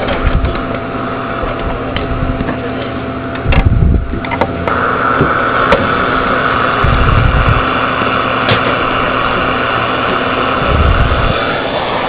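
Coax cable connectors being handled at the back of a CB radio setup, with low knocks and bumps. A steady hiss comes in suddenly about five seconds in and runs until near the end, over a faint steady hum.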